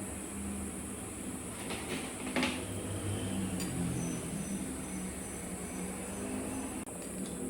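A machine running with a steady hum, with a few short clicks about two seconds in.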